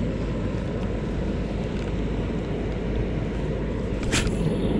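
Steady low rumble of wind buffeting the camera microphone, with a brief sharp sound about four seconds in.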